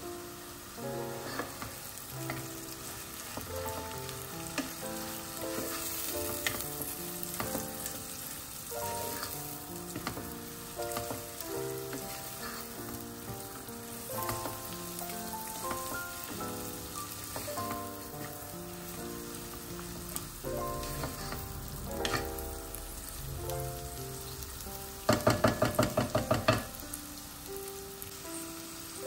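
Green lentils, bulgur and grated carrot sizzling in oil and butter in a pot, stirred with a wooden spoon, over background music. Near the end comes a quick run of about eight loud knocks, roughly six a second.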